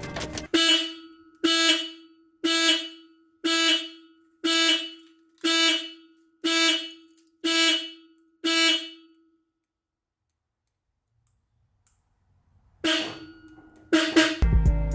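An electronic warning chime from a car sounding nine times, about once a second, each beep fading out quickly, then stopping; two more similar sounds come near the end.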